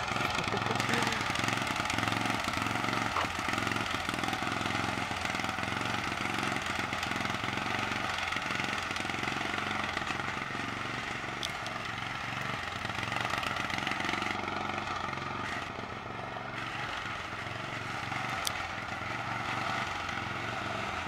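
Small engine of a custom riding lawn tractor running steadily as it is driven along, dipping a little quieter about fifteen seconds in.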